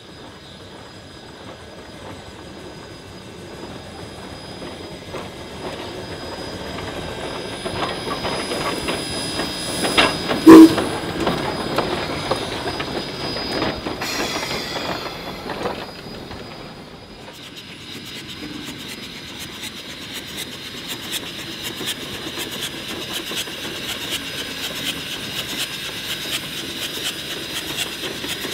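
Shay No. 2 geared steam locomotive rolling slowly along the track, growing louder as it approaches, with a single very loud sharp bang about ten seconds in. Its wheels squeal briefly a few seconds later, and after that comes a steady run of rapid clicking from the running gear and rails.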